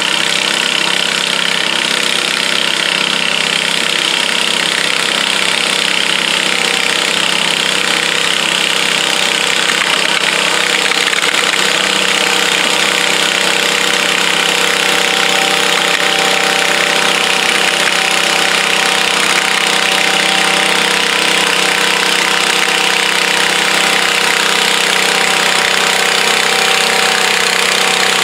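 Small garden tractor engines running steadily at idle, with one engine's steady note becoming clearer about halfway through.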